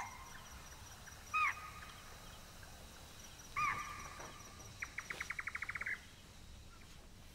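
Faint night-time animal calls: three short, high calls about two seconds apart, each rising and then falling in pitch, then a rapid trill of about ten notes a second lasting just over a second.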